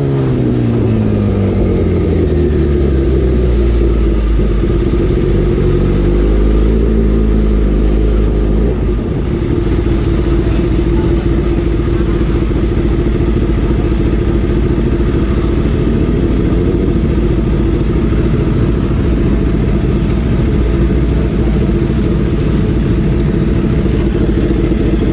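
Kawasaki inline-four superbike engine with an aftermarket exhaust, its revs falling over the first few seconds, lifting briefly around six to eight seconds in, then settling into a steady idle.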